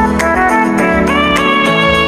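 Instrumental background music with a steady beat and a sustained melody.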